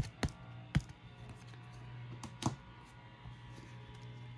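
Baseball trading cards being handled as a pack is flipped through: a few sharp clicks and taps in the first second and one more about two and a half seconds in. Faint background music and a low hum run underneath.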